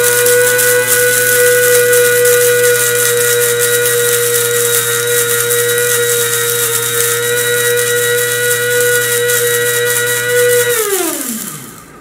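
Mueller electric blade coffee grinder running steadily at full speed, a loud motor whine with a gritty hiss over it, as it grinds dried cayenne peppers to powder. The motor cuts off a little before the end and winds down with a falling whine.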